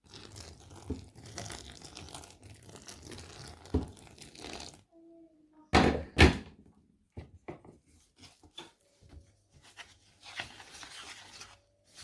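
Puttu flour being stirred and worked in a bowl as boiling water is added: rustling and scraping with a few knocks, two louder knocks about six seconds in, then scattered small clicks.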